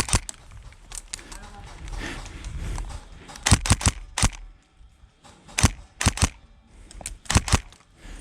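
Airsoft guns firing in short bursts of one to three sharp pops, repeated several times.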